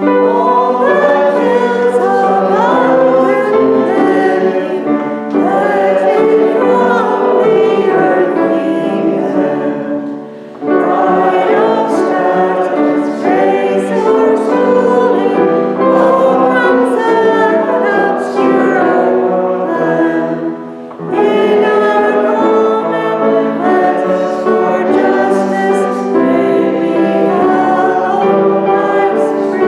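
Voices singing a hymn with instrumental accompaniment, in three long phrases with a short break after each of the first two.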